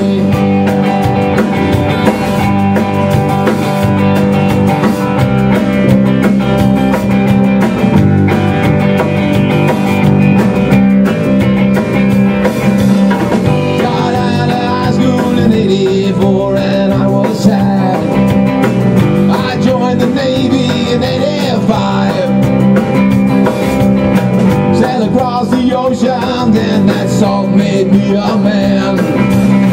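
Rock band playing live in a small room: drum kit, electric guitar and bass guitar in an instrumental passage between sung verses.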